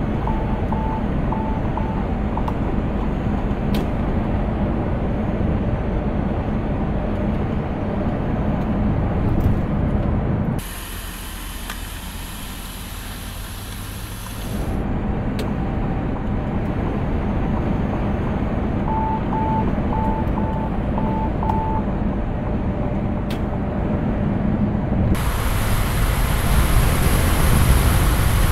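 Steady drone and road noise inside a moving Mercedes-Benz truck cab at about 72 km/h, with a driver-assistance warning chime beeping four times near the start and six times about two-thirds of the way through. Twice the sound changes to a hissing rush of outside road and wind noise.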